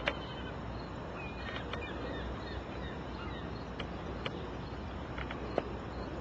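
Steady background hiss, with a few sharp clicks and some brief high chirps, the strongest cluster about a second and a half in.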